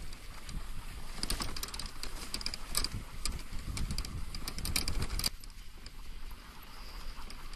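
Dryland dog-sledding rig rolling fast over a dirt trail behind a team of Alaskan Malamutes: a steady rumble of wheels and running paws, with a run of sharp rattles and clicks that stops suddenly about five seconds in.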